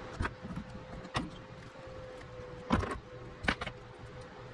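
Several sharp clicks and knocks of hardware being handled as a bolt is worked through a mounting strap, the loudest about three seconds in. A faint steady hum runs underneath.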